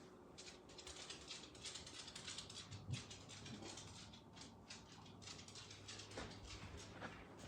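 Faint, irregular light ticks and rustling, with a soft knock about three seconds in.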